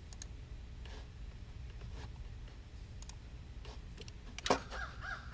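Computer mouse clicking: single clicks roughly a second apart over a low steady hum, with one louder click about four and a half seconds in.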